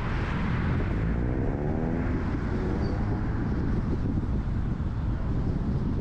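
Car on the move: a steady rumble of road and engine noise, with an engine note rising in pitch about one to two and a half seconds in.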